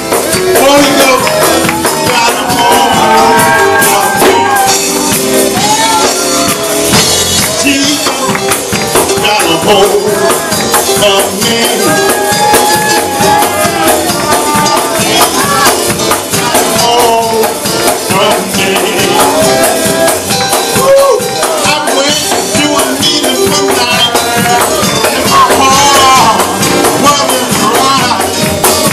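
Fast, loud gospel praise-break music with tambourines shaking throughout and voices singing and shouting over it.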